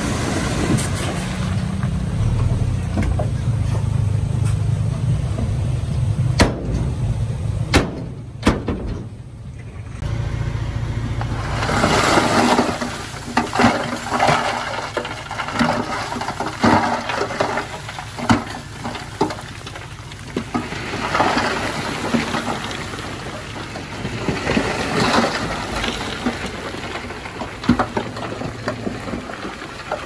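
Komatsu D51PX bulldozer at work. Its diesel engine runs steadily for the first ten seconds with a few sharp clacks, then drops back under a crunching, crackling scrape of stone being pushed, full of irregular cracks.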